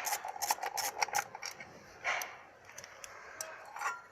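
Sharp clicks and light rattles of intake manifold parts being handled, packed close in the first second or so, then a short scrape and a few scattered knocks.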